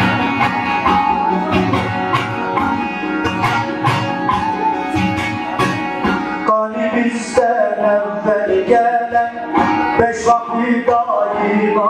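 Bağlama (long-necked saz) played live for the semah, a fast strummed and plucked dance tune.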